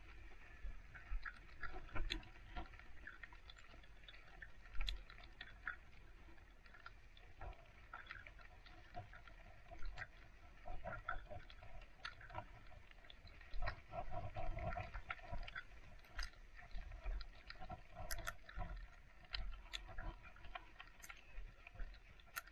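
Footsteps crunching on packed snow: an irregular series of soft crunches and clicks.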